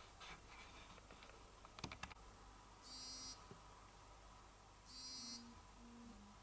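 Smartwatch countdown timer going off at time-up: two short, faint buzzing alerts about two seconds apart, with a few light clicks shortly before the first.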